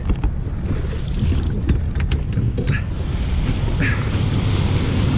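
Shallow surf washing and fizzing around a kayak, with wind buffeting the microphone and a few small splashes or knocks against the hull. The wash grows a little louder about three seconds in.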